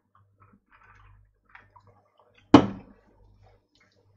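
A single sharp knock of an ice-filled drinking tumbler being handled, about two and a half seconds in, dying away within half a second. Faint small clicks and a low hum sit around it.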